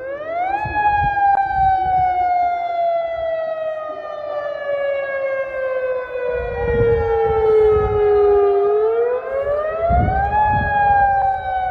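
Outdoor tsunami warning siren sounding a wail: its pitch rises quickly, falls slowly for about eight seconds, then rises again near the end and starts falling once more.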